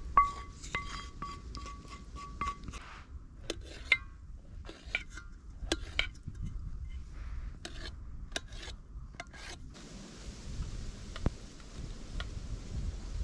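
Metal camp cookware clinking and scraping as a utensil works in a pot. For the first few seconds it is a quick run of taps with a ringing metal note, then scattered single clinks. A steady hiss comes in near ten seconds.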